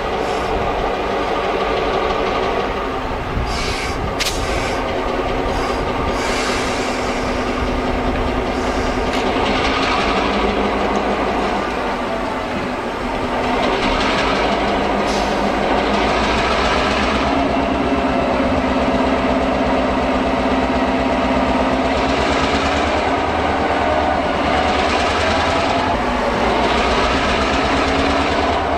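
EMD GP38 diesel locomotive with a 16-cylinder two-stroke engine running steadily near the front of the unit, getting louder and taking on a new steady tone about halfway through. Short bursts of hiss come and go over the engine sound.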